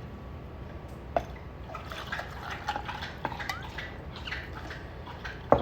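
Tequila being poured into a glass: irregular splashing and dripping of liquid, with a brief rising tone as the glass fills.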